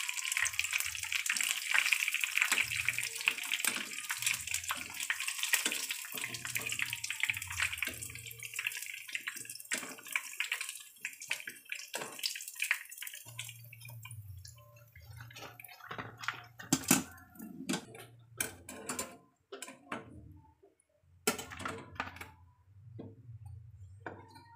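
Battered chicken pieces sizzling as they deep-fry in hot oil in a pan. The sizzle fades away about halfway through, and metal tongs then clink sharply against the pan and a wire strainer basket as the pieces are lifted out.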